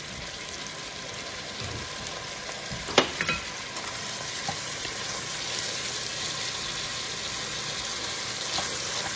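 Diced carrots, onion and minced garlic sizzling in hot oil in an enamelled pot while being stirred with a wooden spatula; the sizzle grows a little louder in the second half. One sharp knock about three seconds in.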